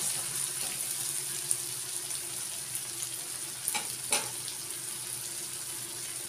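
Sliced onions and dry red chillies sizzling in hot oil in an aluminium kadhai, a steady hiss, with a few sharp clinks of the metal spatula near the middle as it is set down.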